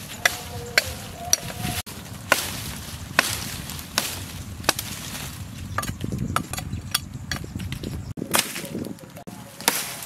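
Machete chopping wood: a run of sharp single blade strikes on tree branches and a cut stick, roughly one every half second to a second.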